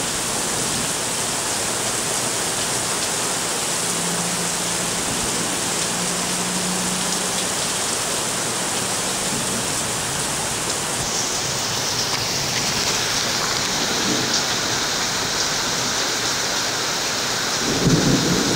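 Heavy rain falling steadily in a thunderstorm.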